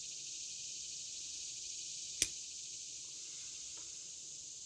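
Steady high-pitched trilling of crickets in the background, with a single sharp click a little past two seconds in.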